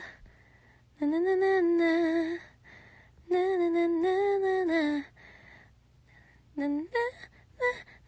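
A woman humming a melody in two long phrases with gently wavering pitch, then a few short notes near the end; her voice is hoarse.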